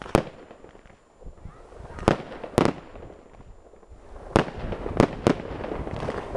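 Fireworks display: six sharp bangs of shells bursting overhead at uneven intervals, the last three coming close together, with people's voices between them.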